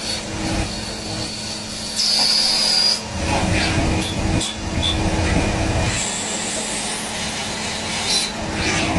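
CNC machine tool running, a steady mechanical hum and rumble, with a loud high-pitched cutting whine for about a second around two seconds in and a fainter high whine later, plus a few short clicks.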